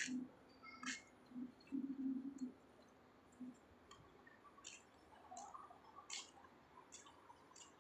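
Faint, irregular sharp clicks, roughly a second apart, with a low hum coming and going during the first two and a half seconds.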